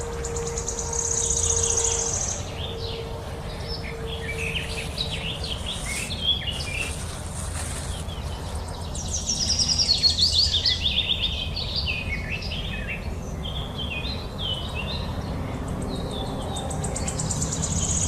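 Several birds singing, with many quick runs of falling chirps, mixed with high buzzing insect trills that come and go, over a steady low rumble.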